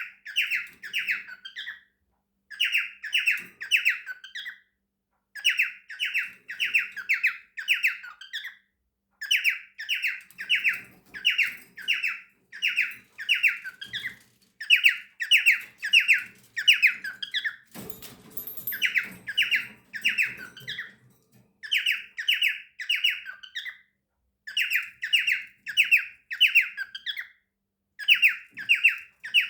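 Cockatiel calling over and over in quick runs of four to six shrill notes, a new run every two to three seconds. A short rustling noise comes about eighteen seconds in.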